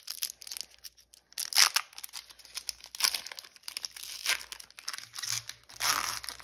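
Foil wrapper of a Pokémon trading-card booster pack being torn open and crinkled in the hands: a run of irregular crackles and rips, the loudest about a second and a half in.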